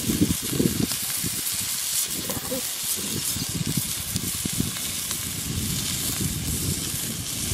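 Bacon-wrapped sausages frying bacon side down in a hot pan with no added fat, a steady crackling sizzle.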